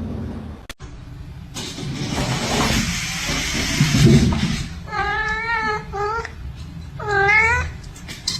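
A few seconds of loud, even rushing noise, then a cat meowing twice: a long wavering meow, then a shorter one.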